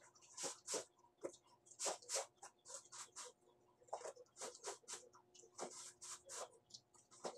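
Clothes being scrubbed by hand in a basin of water. It makes a run of short swishing strokes, about three a second, in loose uneven groups.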